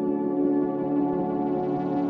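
Ambient background music: slow, sustained tones held steady, with a ringing, singing-bowl-like quality.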